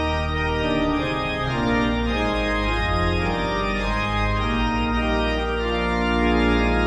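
Channel intro music: sustained held chords that change every second or so.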